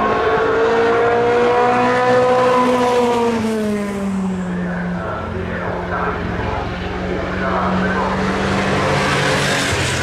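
Historic racing cars on track, engines running hard as they approach and pass. One engine's pitch climbs slightly, then drops about three to four seconds in as it goes by, and another car's engine follows at a steady pitch.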